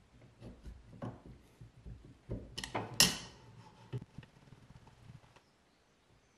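Adjustable wrench and steering-rack tie rod clanking at a bench vise as an old tie rod end is loosened and unscrewed: scattered metal knocks and handling sounds, with one sharp clank about three seconds in.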